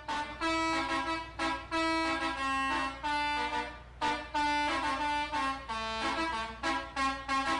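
A bus telolet horn, the multi-tone air horn of an Indonesian bus, playing a tune. It runs through a string of short and held toots, with several notes sounding together.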